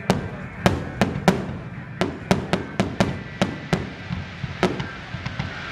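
Fireworks shells bursting in a rapid barrage of sharp bangs, roughly two to three a second at irregular spacing, each with a short echoing tail.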